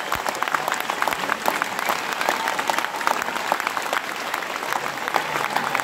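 Large audience applauding: a steady, dense patter of many hands clapping.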